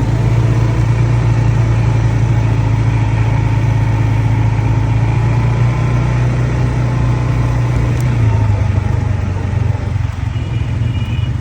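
ATV engine running steadily with a low hum.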